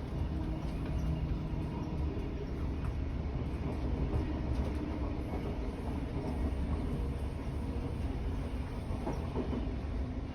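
Queensland Rail electric suburban train running between stations, heard from inside the carriage: a steady rumble of wheels and running gear on the track.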